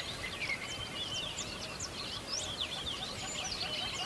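Several birds chirping and twittering together in a busy, overlapping chorus of short, quick high calls.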